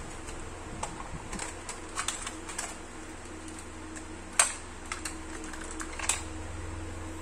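Cassette tape and its paper inlay card being handled and fitted into a clear plastic cassette case: scattered light plastic clicks and paper rustles, with a sharper click about four and a half seconds in and another about six seconds in.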